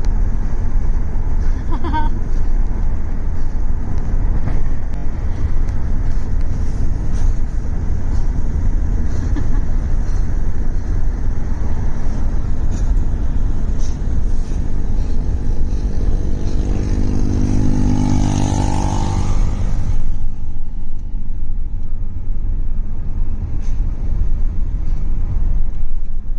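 Wind buffeting through an open car window over low road rumble from a car at highway speed. A droning tone swells and fades in the middle, and about twenty seconds in the hiss abruptly thins, leaving mostly the low cabin rumble.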